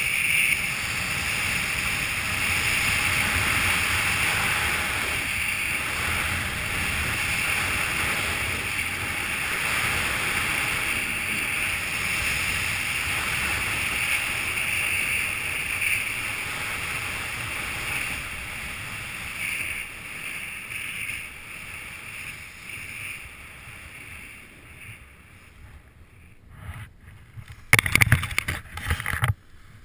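Rushing wind noise on a helmet camera's microphone during a fast speedriding descent on skis, with skis hissing over snow. The noise eases off over the last ten seconds, then a few loud buffets come just before the end.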